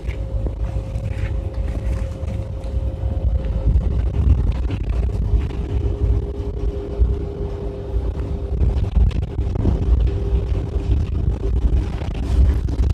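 Bus interior rumble: steady engine and road noise with a faint hum on top that shifts to a lower pitch about four to five seconds in.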